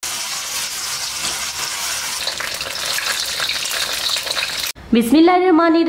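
Hot oil sizzling steadily as food deep-fries in a pan, cutting off suddenly near the end, where a woman's voice begins.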